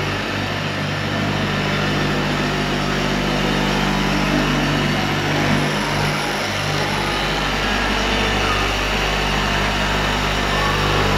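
Handheld electric car polisher running steadily, its pad buffing the paint on a car's fender.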